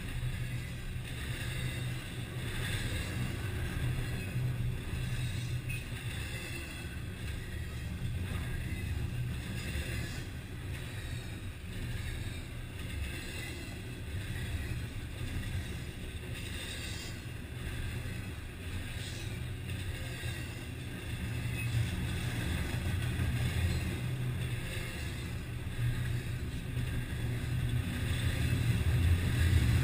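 Double-stack intermodal container freight train passing at close range: a steady low rumble of steel wheels rolling on the rails, growing louder near the end.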